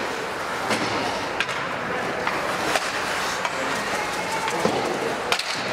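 Ice hockey game in play: skate blades scraping the ice and a few sharp clacks of sticks and puck, over a steady murmur of spectators in the rink.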